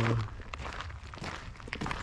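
Footsteps on a gravel trail at a walking pace, a series of short, uneven steps.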